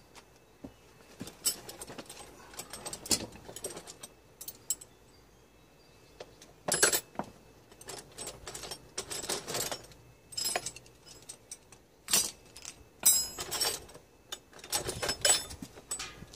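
Metal hand tools such as screwdrivers and pliers clinking and clattering against each other as they are rummaged through in a plastic tool box, in irregular clusters.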